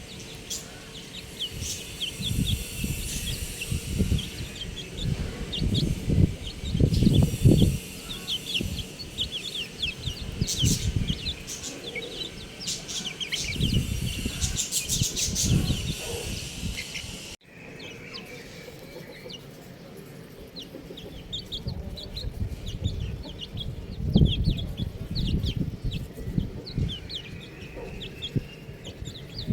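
A brood of baby chicks peeping, a dense scatter of short high cheeps, over irregular low bumps and rumble. The sound drops out for a moment about seventeen seconds in, then the peeping carries on.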